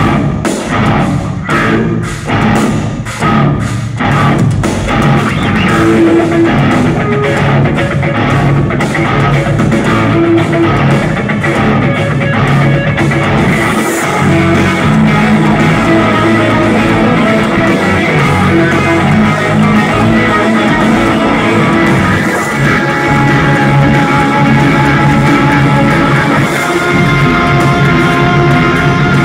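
Live progressive metal band playing an instrumental piece on electric guitars, bass and drum kit, loud. It opens with clipped, stop-start riffing for the first few seconds, then settles into continuous full-band playing.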